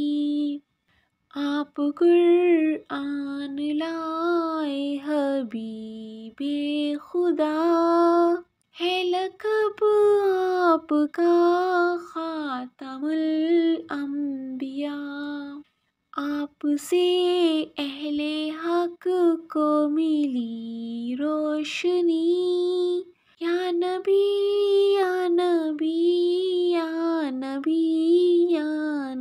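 Solo female voice singing an Urdu naat unaccompanied, in long melodic phrases that bend and ornament the pitch, separated by short silent pauses.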